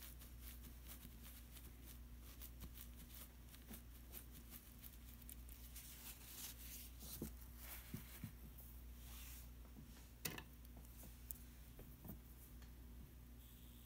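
Faint scratchy strokes and light taps of a paintbrush working paint on paper, with a sharper click about ten seconds in, over a low steady hum.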